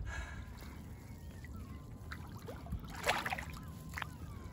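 Shallow water sloshing and trickling as a sea trout is held in it by hand for release, with one sharper splash about three seconds in.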